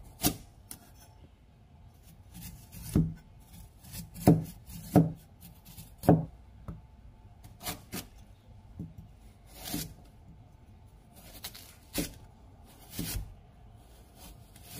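Chef's knife cutting a raw broccoli stem on a plastic cutting board: about a dozen short, sharp knocks at uneven intervals as the blade goes through the firm stem and meets the board.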